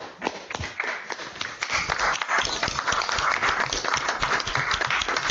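Audience applauding: a few scattered claps at first, thickening into full, steady applause from many hands after about a second and a half.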